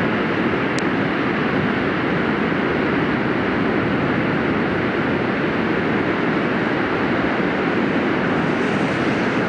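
Steady, even rushing noise of wind and breaking surf.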